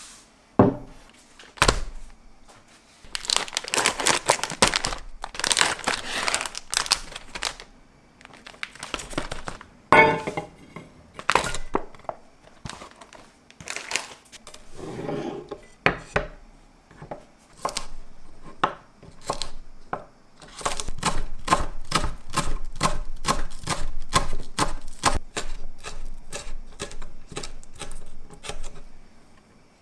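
Kitchen handling sounds: a few seconds of rustling, then a sharp metallic clink with a brief ring as a stainless steel bowl is set down. In the second half a knife slices green onions finely on a wooden cutting board, quick even taps about three or four a second.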